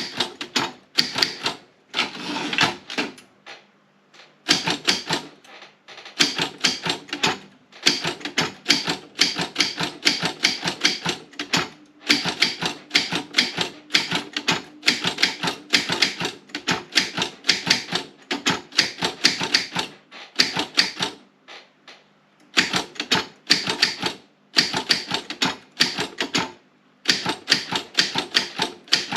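East German Optima M16 typewriter being typed on at a steady pace: rapid runs of sharp key and typebar clacks, several a second, broken by short pauses.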